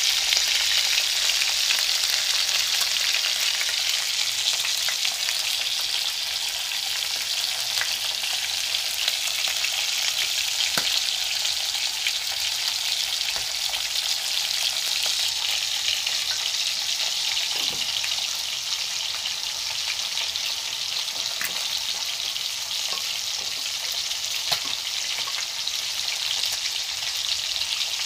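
Hot cooking oil sizzling steadily in a wok as pieces of fish fry in it; the sizzle goes on in the oil after the fish has been lifted out, with a few faint pops.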